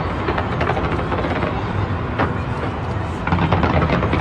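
Fireworks bursting in rapid succession: a steady low rumble of booms with sharp cracks scattered through it, getting louder a little past three seconds in.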